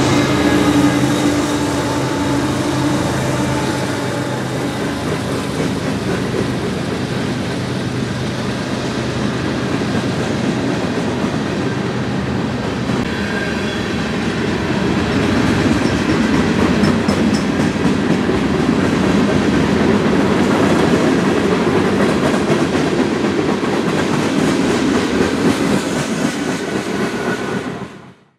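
Union Pacific freight train passing close by, climbing the grade. The diesel locomotives' engines hum steadily for the first dozen seconds or so, then the string of freight cars rolls past. The sound cuts off abruptly near the end.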